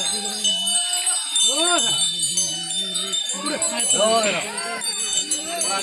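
Small brass bells on a kavadi jingling continuously as it is carried, with repeated voice-like calls that rise and fall in pitch over them.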